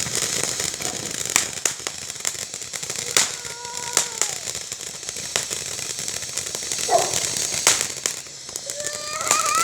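A firework burning with a steady hiss, broken by sharp crackling pops, the loudest about a second and a half, three seconds and seven and a half seconds in.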